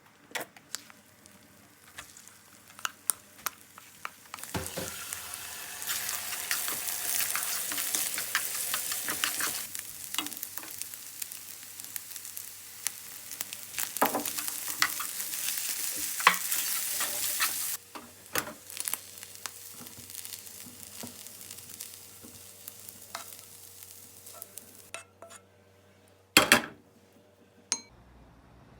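Food sizzling in a frying pan, with the clicks and scrapes of a utensil stirring it. The sizzle starts loudly about four seconds in and drops away a little past halfway, leaving scattered clicks and one sharp knock near the end.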